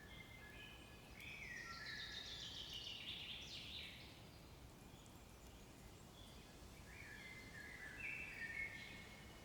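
Faint songbird singing in two phrases: a run of whistled notes with a trill falling in pitch about a second in, then a shorter series of whistled notes near the end, over faint outdoor background.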